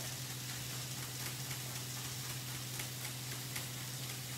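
Chef's knife chopping tomato and herbs on a plastic chopping board: faint, irregular taps of the blade against the board, over a steady hiss and low hum.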